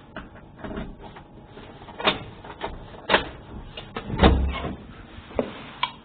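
Sparse, irregular clicks and knocks in an experimental sound piece, the heaviest a deep thud about four seconds in.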